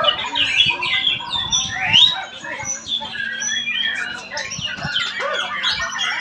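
White-rumped shamas singing against each other, a dense run of overlapping whistles, rapid chirps and sweeping notes.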